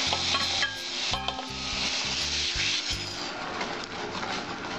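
Roasted semolina pushed off a steel plate into a kadai of simmering pineapple syrup, sizzling as it hits the liquid. A wooden spatula then stirs it through, with a few clicks a little after one second.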